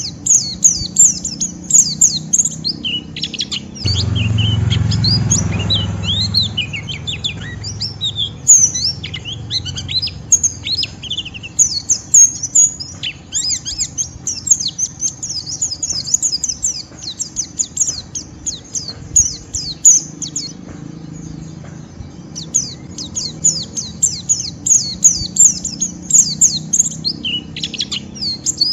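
White-eye (pleci) singing its fast, rough ngeriwik twitter: dense runs of quick high chirps with brief lulls. A low hum swells up for about two seconds around four seconds in.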